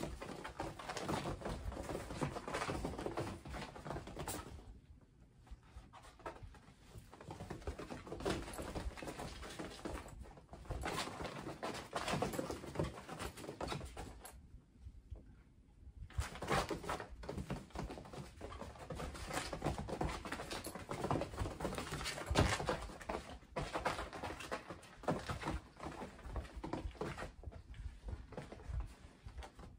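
Kittens scampering and wrestling on a fabric playpen floor: irregular soft paw pats, thumps and rustling of the fabric, with a short lull about halfway.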